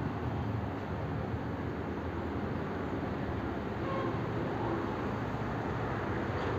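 Steady low background rumble with no distinct event, with a faint short tone about four seconds in.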